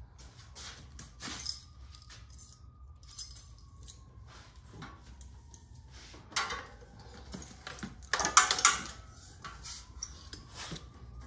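Keys jangling, with scattered small metallic clinks and rustles of handling; the loudest clatter comes a little past eight seconds in. The motorcycle's engine is not running.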